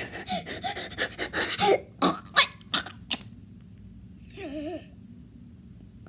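A person forcing burps: a run of short, cough-like bursts over the first three seconds, then one short wavering burp about four and a half seconds in.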